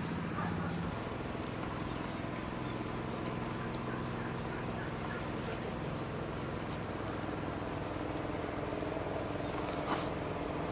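A steady low mechanical hum, like an engine running at a distance, with a few faint poultry calls in the middle and a sharp click near the end.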